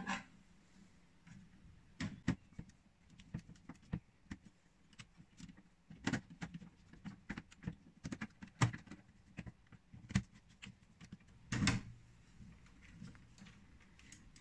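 Irregular small clicks and knocks of hands working on a DIN-rail circuit breaker: wires pushed into its terminals and a screwdriver turning the terminal screws.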